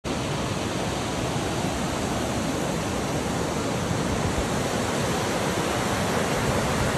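Snowmelt mountain stream rushing and cascading over rocks: a steady, even rush of white water.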